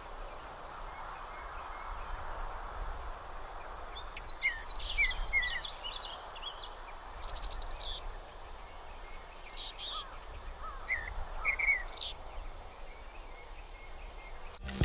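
Songbirds singing: four high song phrases a few seconds apart, each sliding downward, with softer short chirps between them, over a steady background hiss.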